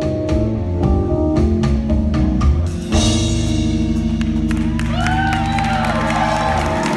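A live band playing: a drum kit and bass at first, then a long held chord from about three seconds in, with a few sliding pitched notes over it.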